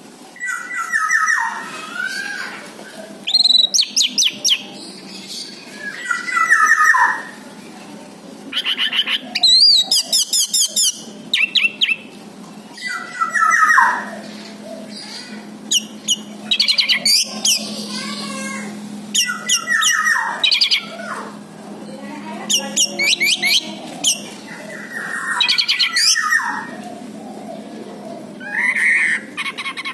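Orange-headed thrush singing: a run of loud, varied phrases, one every two to three seconds, each mixing fast high trills with downslurred whistles.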